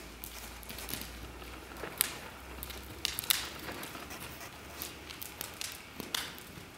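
A pony walking under a rider on arena footing: irregular soft taps and clicks of hooves and tack, with a couple of sharper clicks about two and three seconds in.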